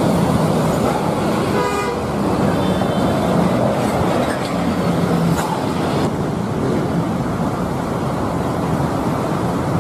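Road traffic with large buses driving past close by, engines running, and a vehicle horn sounding briefly about a second and a half in.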